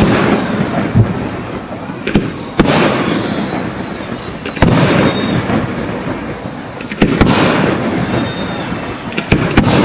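Aerial fireworks shells bursting overhead, about six sharp bangs a few seconds apart, some in quick pairs. Each bang is followed by a long fading echo.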